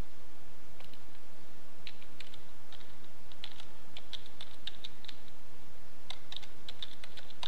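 Typing on a computer keyboard: irregular runs of quick key clicks, starting about a second in, with a short pause just past the middle.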